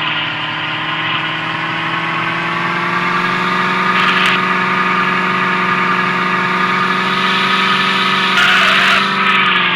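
Porsche car engine running at steady revs while being driven, its pitch slowly rising and then dropping back near the end as the throttle eases. Two short rushes of noise break through, about four seconds in and again near the end.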